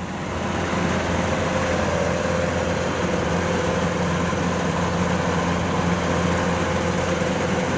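Heavy diesel engine of a rice-harvesting farm machine running steadily, with an even, unbroken hum.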